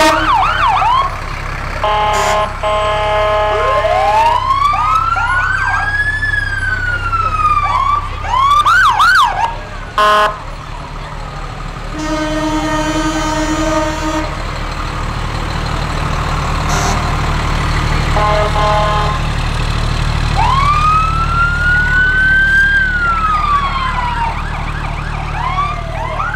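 Emergency-vehicle sirens going off together: two slow wails that rise and fall, bursts of quick yelping, and several long horn blasts in between, over a steady low engine rumble.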